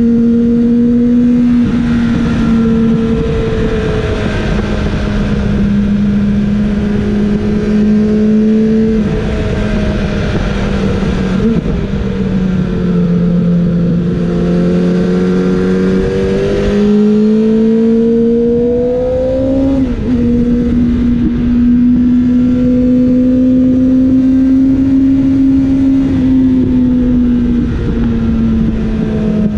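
Kawasaki ZX-7R's 750cc inline-four engine running hard at high revs on track, heard from on the bike over a steady rush of wind. The pitch holds high, sinks for a few seconds about halfway through as the revs fall, then climbs back with a short break at a gear change and holds high again.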